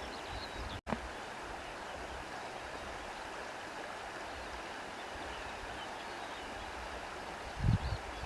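Steady rushing of a flowing stream. The sound drops out for an instant about a second in, and a low thump comes near the end.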